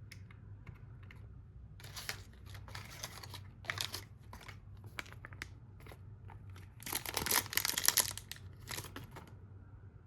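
Bursts of crinkling and clicking from hands working with keycaps and their packaging. The loudest burst comes about seven to eight seconds in.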